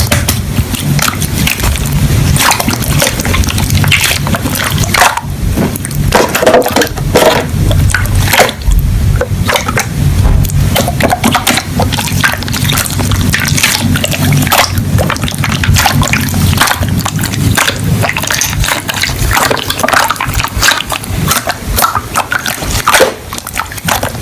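Slime being squished and poked by hand, with wet, sticky clicking and squelching that goes on in quick crackles throughout.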